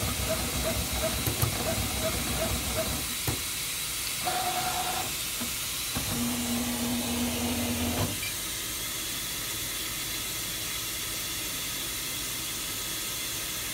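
Flatbed cutting plotter at work cutting film. Its motors give a regular pipping, about two to three a second, then a brief higher whine and a longer low hum, and stop about eight seconds in. A steady hiss carries on throughout.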